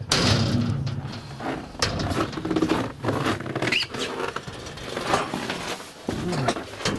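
Scuffing footsteps, knocks and rustling from people walking on, with a brief high squeak near the middle.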